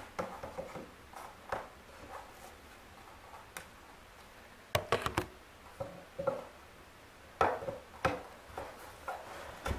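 Irregular clicks, knocks and scrapes of a mannequin's stand pieces being handled and fitted into the base, with a cluster of sharp knocks about five seconds in.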